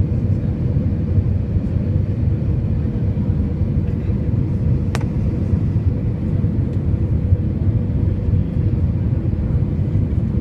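Steady low rumble inside an Airbus A320 cabin during the landing, with a faint steady hum and one sharp click about halfway through.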